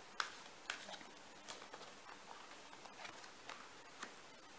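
Tarot cards being handled: a handful of faint, scattered clicks and taps as a card is taken from the deck and laid down on the cards spread on the table.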